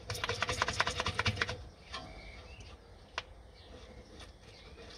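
A metal brake caliper slide pin twisting in its bore, which has been wet with WD-40: a quick run of rattling clicks for about a second and a half, then a single click about three seconds in.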